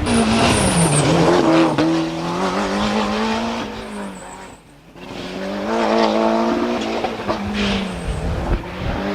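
Two rally cars passing in turn, their engines revving hard with gear changes heard as steps in pitch. The first fades out about halfway through and the second comes in and passes near the end.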